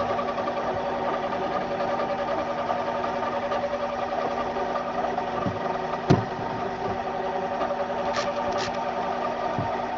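Metal lathe running steadily: a continuous mechanical hum of several steady tones, with a few sharp clicks, the loudest about six seconds in.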